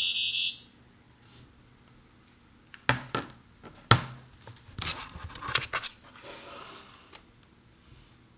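Frequency-shift-keyed data tones from a phone's speaker, a cluster of high steady tones that stops about half a second in. From about three seconds in come handling knocks, scrapes and rustles, the sharpest knock about four seconds in.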